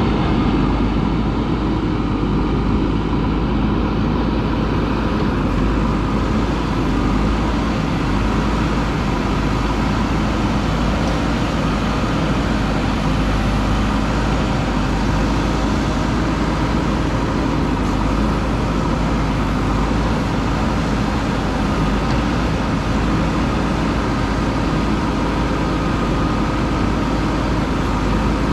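JCB 3DX backhoe loader's diesel engine running steadily while it works.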